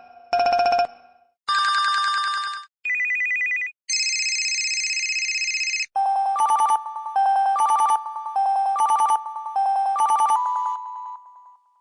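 HTC Smart phone playing a run of its built-in ringtones through its speaker, one after another. Several short electronic tones and jingles, each a second or two long, are followed by a longer ringtone that repeats the same short phrase about five times.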